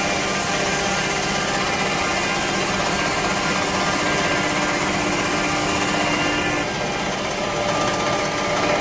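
CNC stone edge-grinding machine running under water spray as it grinds a countertop edge: a steady mechanical whine with several held tones over a wet grinding hiss. About two-thirds of the way in the hiss drops away and the sound changes character.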